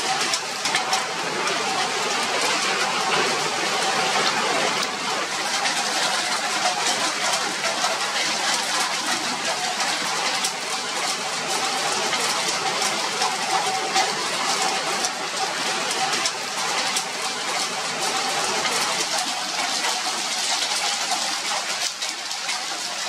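Steady heavy rain and hail falling, a dense patter of fine ticks over a constant hiss, with a faint steady tone underneath.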